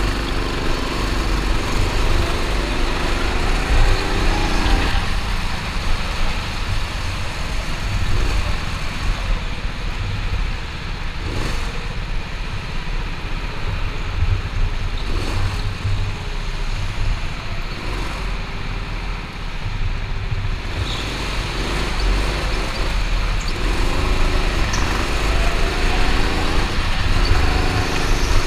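Go-kart's small engine heard from onboard, its pitch rising and falling again and again as it speeds up and backs off through the corners, over a steady low rumble. Its note is fainter through the middle stretch, where a few sharp knocks come through.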